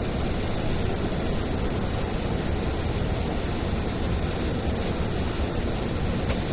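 Steady rush of airflow and engine noise inside a Boeing 737-800 cockpit on approach.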